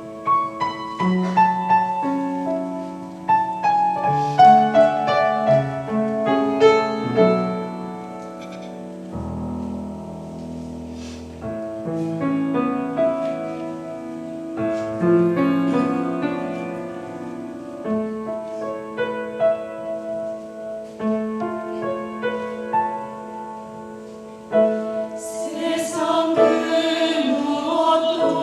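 Piano playing the introduction to a choral hymn, with the church choir coming in singing near the end.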